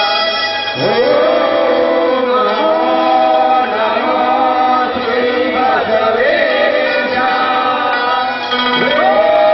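Voices singing a slow chant-like song, with long held notes that glide between pitches.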